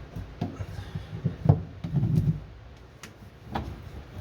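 Scattered knocks and thumps of something being handled, the sharpest about one and a half seconds in and another near the end.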